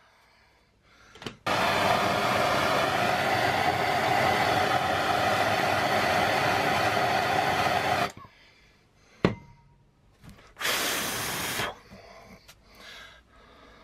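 Handheld gas blowtorch burning with a steady hiss for about six seconds while it seals the frayed cut end of a ratchet strap. A sharp click follows, then a second, shorter burst of flame lasting about a second.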